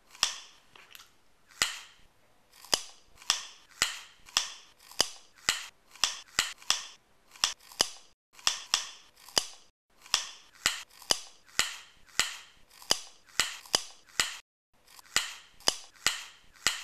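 Lip smacking while tasting homemade mayonnaise: a long series of sharp, wet clicks about two a second, with two brief pauses.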